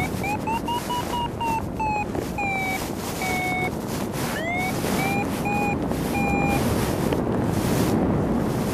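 Paragliding variometer beeping its climb tone in short beeps. The beeps rise in pitch, then ease lower as the climb weakens, and start again about halfway through, marking lift in a thermal. Wind rushes over the microphone underneath.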